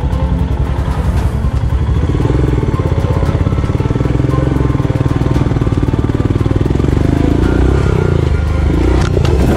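Royal Enfield Himalayan's 411 cc single-cylinder engine pulling under load up a steep dirt climb, with a fast even beat; the revs rise near the end, and a sharp clatter comes just before the end.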